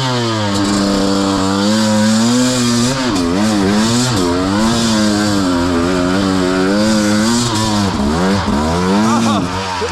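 Two-stroke dirt bike engine revving under load, its pitch rising and falling unevenly as the throttle is worked, with a couple of deeper drops in revs partway through and near the end.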